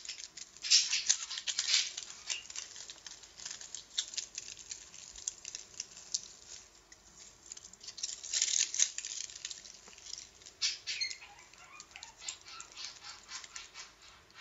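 Tinfoil crinkling and crackling as it is worked between the fingers, in several bursts with short lulls.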